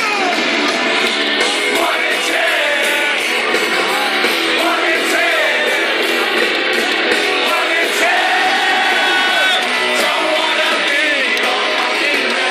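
Rock band playing live at full volume, with electric guitars, drums and a singing voice, heard from within the crowd. The sound is thin and steady, with almost no bass.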